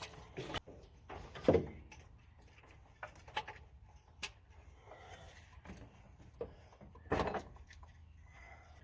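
Spark plug wires being worked onto the terminals of a Chevy 350 V8's distributor cap: scattered clicks and knocks with handling noise between, the loudest about one and a half seconds in and again about seven seconds in.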